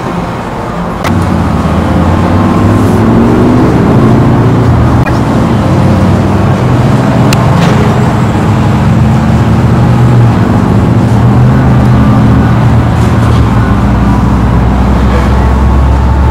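A motor starts suddenly about a second in, its pitch rising briefly as it comes up to speed, then runs loudly and steadily, with a few faint clicks over it.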